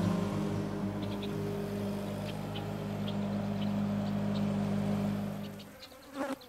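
John Deere E150 riding lawn tractor engine running steadily as it pulls away, fading out about five and a half seconds in. A brief scraping sound comes near the end.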